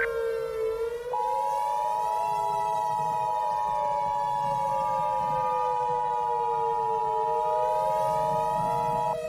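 Civil defense siren wailing, slowly rising and falling in pitch. Over it, the Emergency Alert System's steady two-tone attention signal sounds from about a second in and cuts off just before the end.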